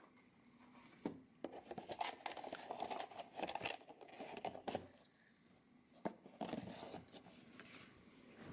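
Faint handling sounds of a small boxed toy figure: light clicks, scrapes and rustles of cardboard and clear plastic packaging, with a sharper click about six seconds in.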